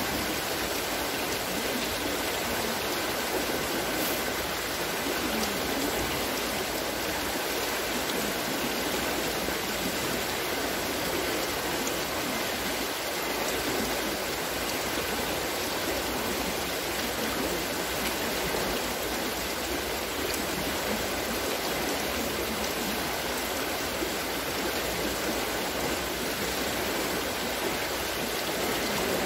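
Steady rushing and splashing of water at a turning wooden water-lifting wheel, its buckets spilling water as they come over the top.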